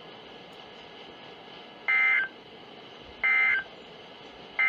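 EAS/SAME end-of-message data bursts: three identical short, warbling two-tone digital bursts about a second and a half apart, starting about two seconds in, over faint broadcast hiss. They mark the end of the severe thunderstorm warning message.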